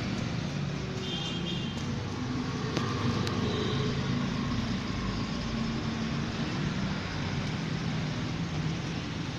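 Steady background din of road traffic, with a couple of light clicks about three seconds in.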